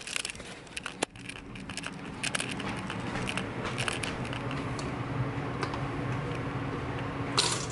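Scattered clicks and rattles of a handheld camera being carried and handled, over a steady low hum; a short louder rattle comes near the end.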